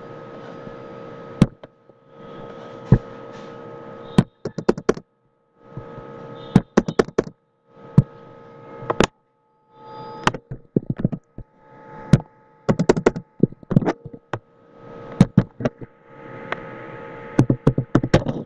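Computer keyboard keystrokes and mouse clicks as code is edited: single sharp clicks alternating with quick bursts of several taps. A steady hum runs underneath and cuts in and out.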